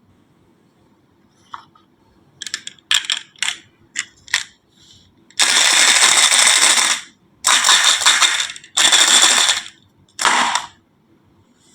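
Toy pieces clattering down a wooden HABA marble-run slope: a scatter of sharp clicks, then, about halfway through, four longer rattling runs one after another.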